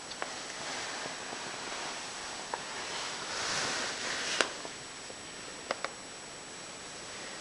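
Handheld camera handling noise: rustling, with a few short sharp clicks, the sharpest about four and a half seconds in.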